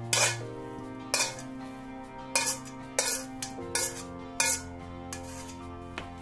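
A spatula knocking and scraping against a metal cooking pot as ground meat is scraped off it into the pot: about six sharp knocks at uneven intervals, over steady background music.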